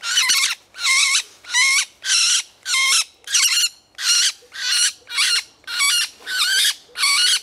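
Green woodpecker (Picus viridis) held in the hand, giving a steady run of loud, harsh squawking calls, about two a second. These are distress calls from a bird being handled and freed from a mist net.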